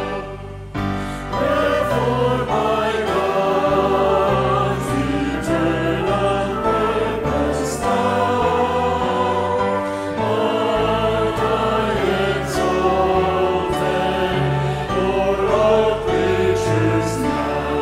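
Small group of men and women singing a hymn together over instrumental accompaniment, with an Alleluia refrain. There is a brief break between verses about a second in, then the singing resumes.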